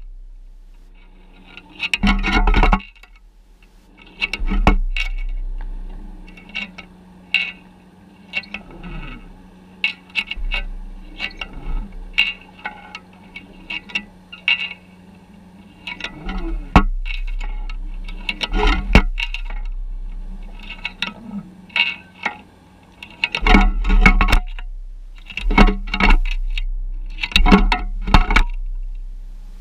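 Underwater sound picked up through a GoPro housing on the seabed: irregular sharp knocks and clicks over a steady low hum.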